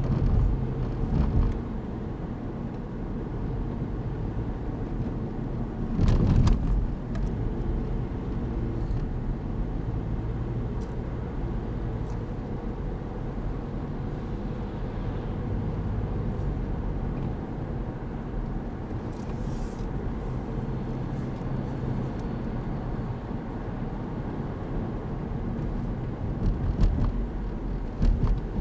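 Car driving along a street, heard from inside the cabin: a steady low rumble of engine and tyres, with a loud thump about six seconds in and a smaller one near the end.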